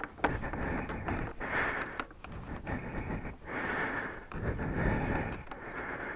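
A person breathing heavily close to the microphone in swells about a second apart, with a few small clicks of parts and tools being handled.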